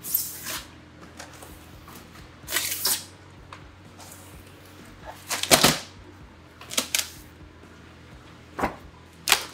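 A taped shipping box being opened, its foam insulated lid and packing scraping and rustling in about six short bursts, the loudest about five and a half seconds in.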